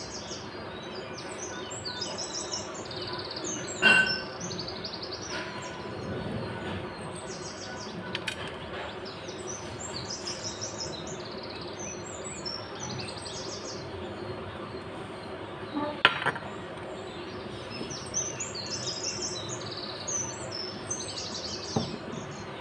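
Small birds chirping in quick repeated bursts throughout, over a steady low background hum, with two sharp clicks about 4 and 16 seconds in.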